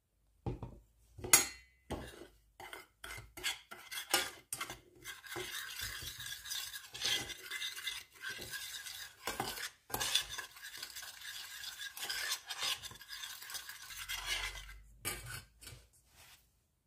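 Metal spoon stirring and scraping a mix of powdered cake glaze, sugar and cinnamon in a stainless steel saucepan. A few sharp clinks of the spoon against the pan come first, the loudest about a second in, then steady scraping.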